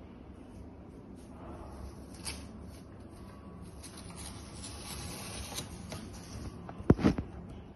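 Rustling and shuffling of things being handled, with a quick cluster of sharp knocks, the loudest sound, about seven seconds in.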